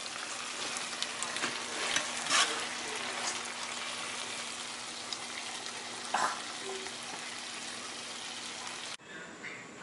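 Pasta in tomato and pepper sauce sizzling steadily in a skillet as the sauce reduces into the noodles, with a few sharp clicks of metal tongs against the pan. The sizzle cuts off abruptly near the end.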